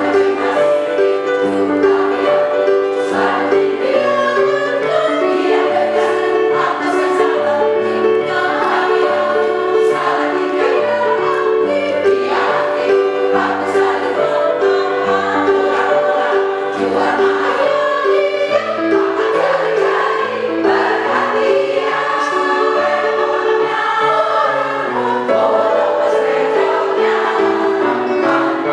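Women's choir singing in several parts, holding long notes in chords that step from one pitch to the next.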